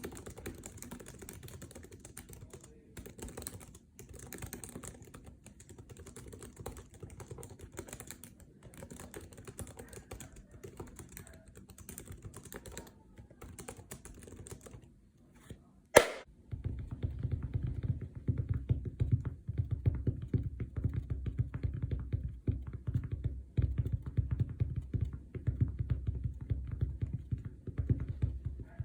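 Continuous fast typing on computer keyboards, a membrane keyboard among them. For about the first sixteen seconds the keystrokes are a light, thin clatter. A single sharp knock follows, then the typing goes on louder, with a deeper thud to each stroke.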